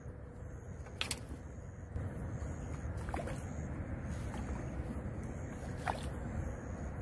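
A fish, a crucian carp, splashing at the pond surface: three short, sharp splashes over a steady low rumble.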